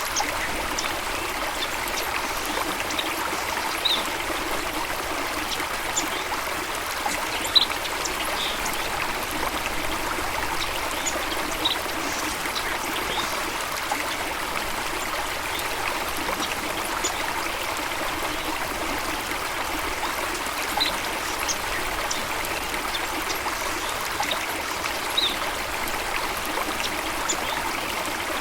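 Steady running water of a stream, a constant rushing trickle. A few brief high sharp sounds stand out now and then.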